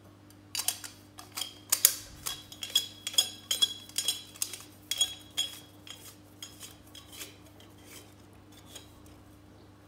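Brass sev press being handled as its fine-holed disc is fitted: quick, irregular metallic clicks and clinks of brass against brass, each with a slight ring, thinning out and growing fainter after about six seconds.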